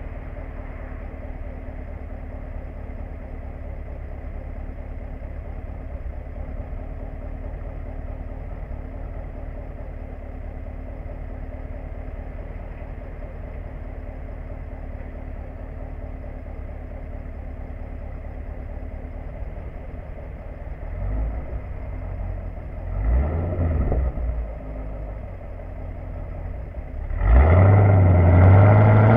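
Chevrolet Camaro's LS3 V8, fitted with Kooks headers, catted midpipes and a Borla S-Type cat-back exhaust, idling steadily. Near the end it gives two brief blips, then about two seconds before the end it pulls away hard, the exhaust note climbing in pitch.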